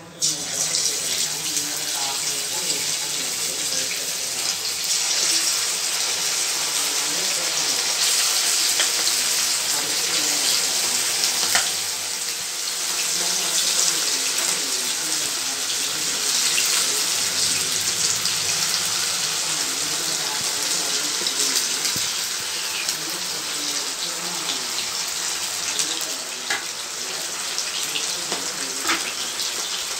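Marinated chicken 65 pieces deep-frying in hot oil in an aluminium kadai: a loud, steady sizzle that starts suddenly as the first pieces drop into the oil.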